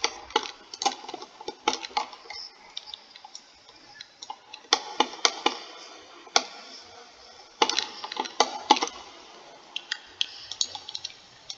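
Computer mouse clicking irregularly, single clicks and quick clusters of several.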